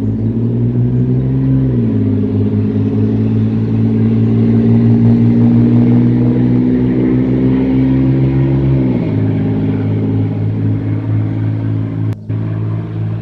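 An engine running steadily, its pitch stepping up about two seconds in and dropping back down about nine seconds in, with a brief cut-out near the end.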